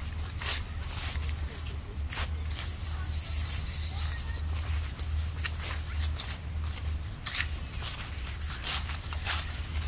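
Footsteps crunching and rustling through dry fallen leaves on grass, an irregular run of short crisp rustles with a denser patch of rustling a few seconds in, over a low steady rumble.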